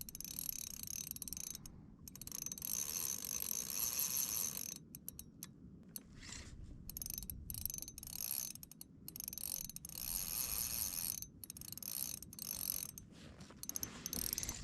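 Fishing reel cranking in line in stretches with short pauses, its gears whirring and clicking while a heavy fish is on.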